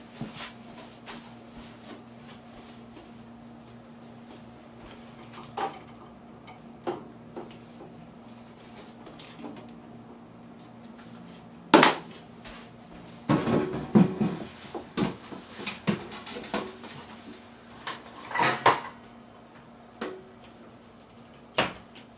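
Kitchen clatter of dishes, pots and utensils being handled and set down: scattered knocks and clinks, one sharp loud knock about halfway through, then a busy run of clattering. A steady low hum runs underneath.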